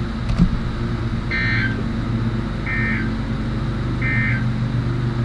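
Emergency Alert System end-of-message data tones from a NOAA Weather Radio receiver's speaker: three short, identical warbling data bursts, just over a second apart, marking the end of the alert. They sound over a steady low hum, with a single click just before the first burst.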